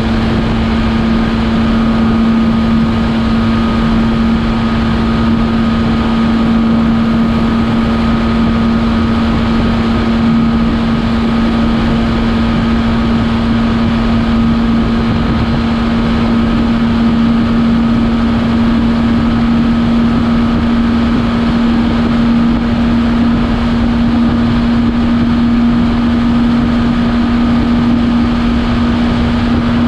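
Benelli TRK 502X's parallel-twin engine running flat out at a steady pitch near the bike's top speed of about 140 km/h, under a constant rush of wind on the microphone.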